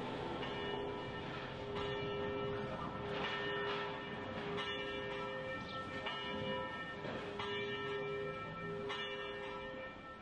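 Bells ringing, struck about every one and a half seconds, their tones overlapping and ringing on between strikes.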